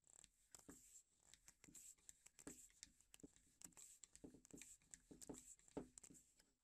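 M5 threaded insert nut being screwed into a wooden block with a screwdriver: faint, irregular scraping and creaking strokes, several a second, as the nut's threads cut into the wood.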